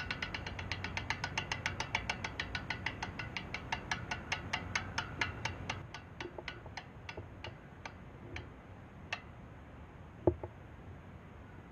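Freehub of a spun rear road-bike wheel ticking as the wheel coasts: quick clicks at first that space out steadily as the wheel slows, the last about nine seconds in. A couple of soft knocks near the end.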